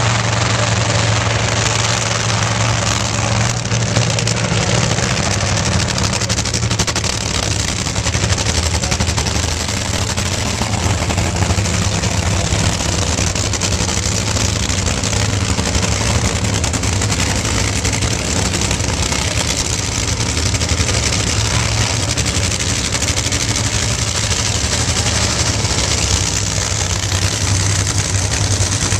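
Nitro Funny Cars' supercharged, nitromethane-burning V8 engines running loudly and steadily at low speed, as the cars are backed up to the starting line after their burnouts.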